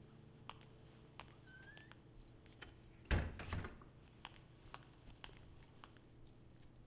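Keys jangling and clicking in the front door's lock, then the wooden door opening with a thud about three seconds in, followed by more light clicks.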